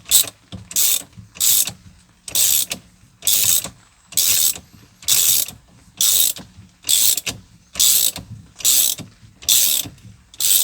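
Socket ratchet clicking in steady back-strokes, a little faster than one a second, as the steering wheel hub nut is run down.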